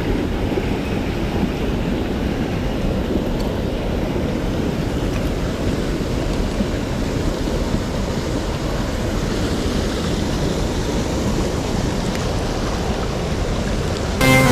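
Steady rushing of a mountain stream's water, an even noise heaviest in the low range. Music starts right at the end.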